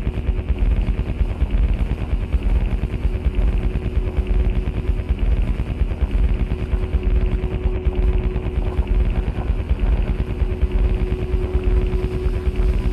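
Experimental electronic noise music: a dense, rapid stuttering crackle heavy in the low end, with a steady droning tone that grows stronger a few seconds in.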